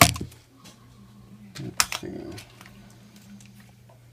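Sharp clacks of small hard parts, the RC truck's spur gears, being handled and set down on a hard surface: a loud one at the start and a couple more about two seconds in. A steady low hum runs underneath.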